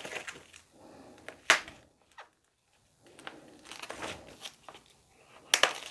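White foam packing sheet wrapped around a computer, cut open with a blade and pulled apart: irregular crinkling and rustling, with a sharp crack about a second and a half in and a short quiet stretch around the middle.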